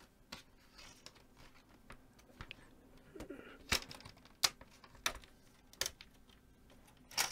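Plastic retaining clips of a ThinkPad X240's screen bezel popping loose as the bezel is pried off by hand: a series of sharp clicks and snaps spread over several seconds.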